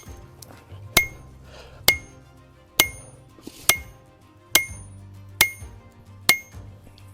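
Hand hammer striking a handled hot punch driving the eye through a hot steel axe billet: about eight evenly spaced blows, a little under one a second, each with a short metallic ring. Background music runs underneath.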